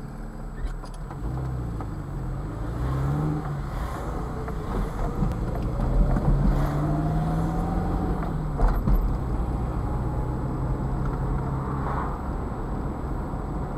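Car engine and road noise heard from inside the cabin while driving, the engine note rising twice and then holding steady. A sharp knock about nine seconds in.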